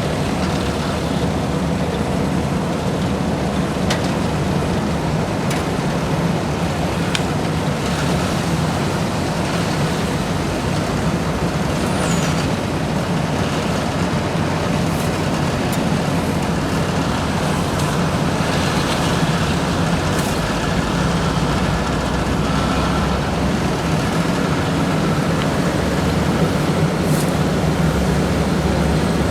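Heavy diesel paving machinery running steadily: a continuous low engine drone, with a few faint clicks and knocks over it.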